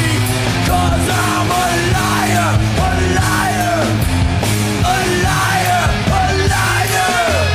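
Rock band playing without vocals: drums and cymbals under a steady beat, with a lead line bending up and down in pitch.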